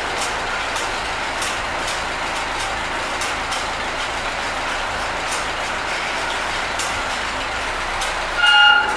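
Ford tractor engine idling steadily. Near the end a brief high-pitched tone sounds over it for about half a second.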